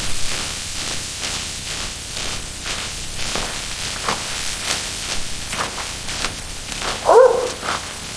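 A steady hiss with many short crackles throughout, and one short animal call with a bending pitch about seven seconds in.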